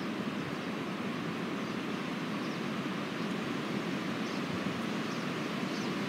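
Wind blowing steadily through a conifer forest: an even rushing hiss of moving branches with a low rumble under it.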